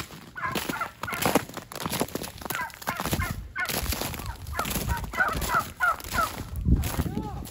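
Domestic turkeys calling from a flock, many short calls overlapping, with footsteps crunching on ice-crusted ground.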